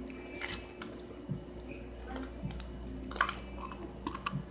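Sticky homemade slime being handled and pressed into a container: soft squishes and scattered small clicks, over a steady low hum.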